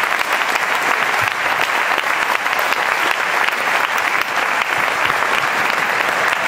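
Audience applauding, a dense, steady clapping that carries on through.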